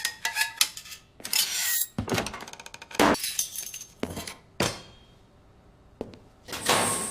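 Garage work noises: a run of metallic clinks and knocks, with a heavy thunk about three seconds in, a short lull, and then a hissing noise starting near the end.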